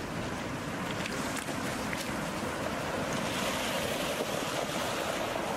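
Sea surf breaking and washing up over a pebble beach, a steady rushing of water that swells louder as a wave runs in about three seconds in.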